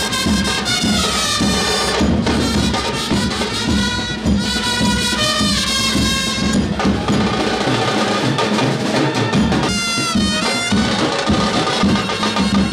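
Lively music with a busy percussion beat under a gliding melody line.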